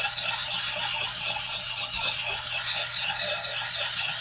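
Oiled sharpening stone scraping back and forth over the steel edge of a Gransfors Bruks axe, honing out a chip. A continuous rasping scrape, with a faint steady low hum underneath.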